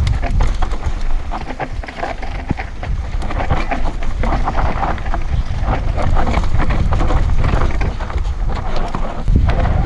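Mountain bike descending a rough dirt trail at speed: wind buffeting the action-camera microphone, with the tyres on dirt and the bike's chain and frame rattling over bumps in a rapid run of clicks and knocks.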